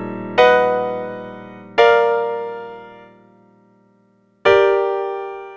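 Piano chords struck three times, each left to ring and fade away. The second chord dies out almost completely before the last one sounds near the end.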